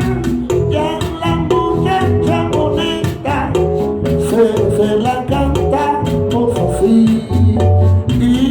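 Salsa band music playing, with a steady dance rhythm and bass line.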